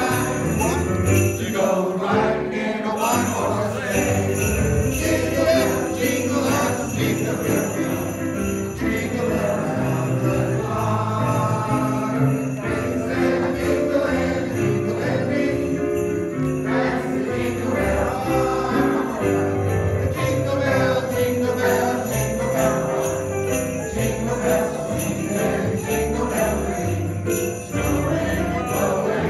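A Christmas song sung by a choir with soloists on microphones, over an accompaniment with steady sleigh-bell jingling.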